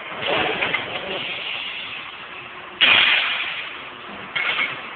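CNC tube bending machine working through a cycle, with a sudden loud hiss of released air about three seconds in and another shorter one near the end.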